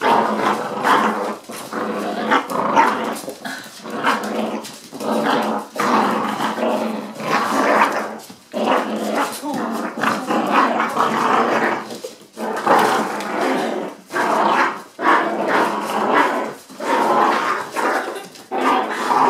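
American Staffordshire Terrier puppies growling in play while tugging at a stuffed toy, in bouts of a second or two with short breaks between.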